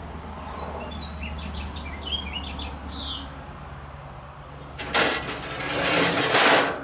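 Birds chirp with short high calls for the first few seconds. Then, about five seconds in, a metal barbecue grill grate scrapes and rattles against the grill body for nearly two seconds as it is lifted out.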